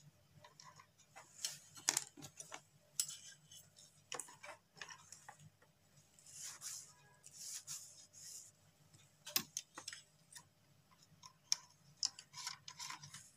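Faint, irregular small clicks, taps and rubbing from hands handling wire and working wire ends onto the terminal screws of a switch-socket board.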